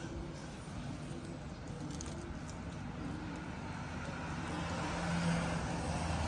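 Street traffic heard from an upstairs window: a vehicle's engine and tyre noise, with a low steady hum that swells about five seconds in as it passes.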